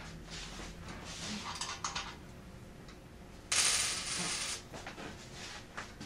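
Coins clattering in a Gray Mfg 150G payphone's coin mechanism. Light rattles and clicks come first, then a loud clatter of coins lasting about a second just past the middle.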